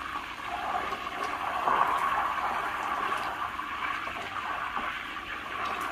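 Melted butter simmering in a steel pot on a low flame, a steady bubbling hiss as its water cooks off on the way to ghee.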